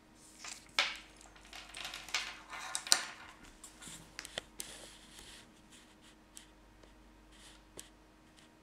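Flat earphone cable being handled and unwound by hand: irregular rustling and rubbing with a few sharp clicks, the loudest about three seconds in. The handling dies down after about five seconds, leaving only a couple of faint ticks.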